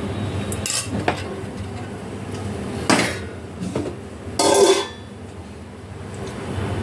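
Metal kitchen utensils clinking and scraping against a cooking pot: a few short clinks, then a louder half-second scrape about four and a half seconds in, over a steady low hum.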